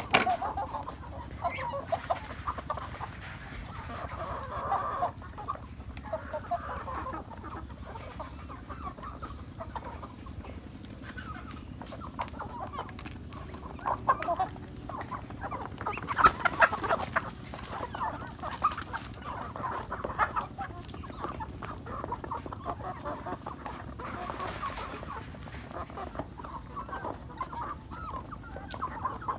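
A flock of hens clucking and calling continuously while they feed. Scattered sharp taps come through, the loudest cluster about halfway through.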